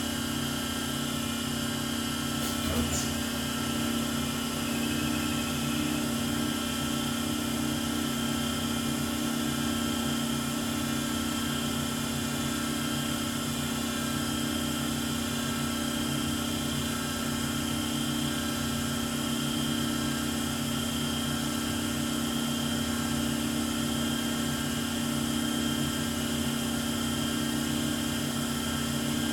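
Compound automatic lathe for small-diameter parts running steadily: a continuous machine hum with several steady tones, and a single brief click about three seconds in.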